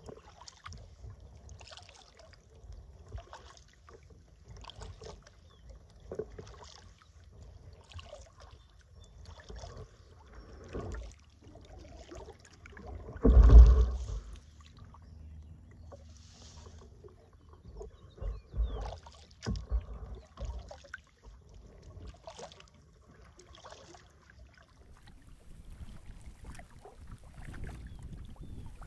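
Kayak paddle blades dipping and pulling through river water in a steady rhythm, about one stroke a second, with splashing and dripping. There is one much louder thump about halfway through.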